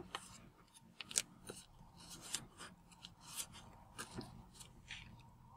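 Origami paper crinkling and rustling as fingers fold and press its creases flat: soft, irregular crackles, a few a second.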